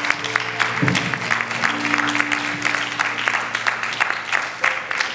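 Church congregation applauding, many hands clapping unevenly, over a few soft held musical notes.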